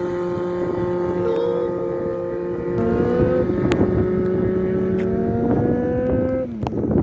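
Honda CBX 750's four-cylinder engine revving, held at raised revs with the pitch climbing slightly, then dropping sharply as the throttle is closed shortly before the end, with a few sharp clicks.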